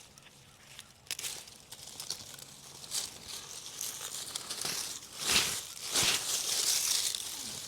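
Digging through garden soil around sweet potato roots: crumbling, scraping and rustling of earth and plant matter. The strokes grow louder, with the strongest scrapes about five to seven seconds in.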